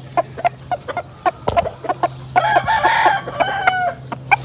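Gamecock roosters clucking in short, quick clucks, with a rooster crowing for about a second and a half from around halfway through. A sharp click sounds once about a third of the way in.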